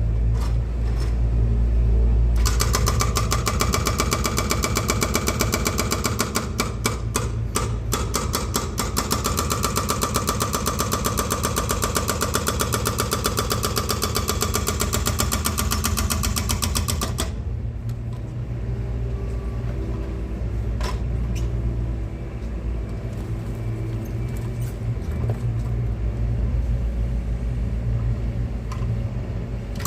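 Diesel engine of an excavator running with a steady low rumble. From about two seconds in it turns louder and harsher, with a rapid even clatter, for about fifteen seconds, then drops back to the lower rumble.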